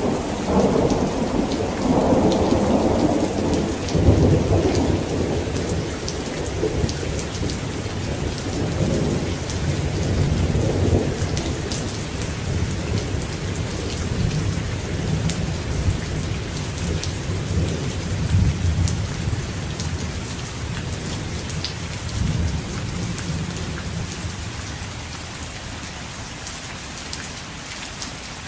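Steady rain with a long rolling rumble of thunder, loudest in the first few seconds and dying away over the following twenty seconds, leaving the rain hiss alone near the end.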